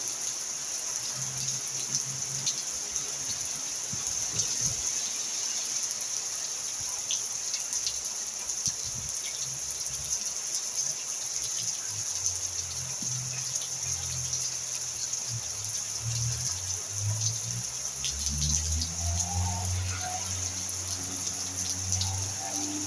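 Steady rain falling, a constant hiss of drops on the roof and the wet ground. Low humming tones come in beneath it about halfway through and grow stronger near the end.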